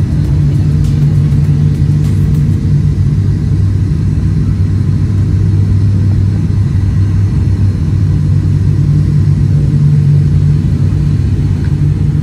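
Turboprop airliner's engines and propellers droning steadily inside the cabin on final approach, a loud low hum with two steady tones over a rumble.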